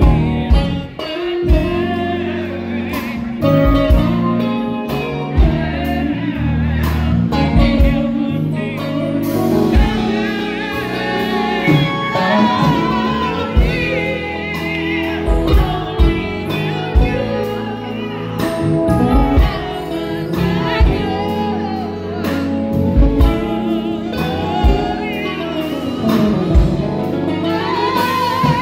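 Live band playing an instrumental: drum kit keeping a steady beat, Yamaha MOX keyboard and electric guitars, with a wavering lead melody line over the top.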